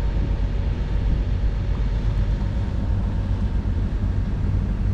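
Steady low rumble of a sailing yacht's inboard diesel engine running as the boat motors along.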